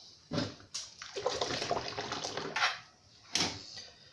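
Hands splashing and swishing through a sink of soapy water while washing black-powder revolver parts, in several irregular bursts.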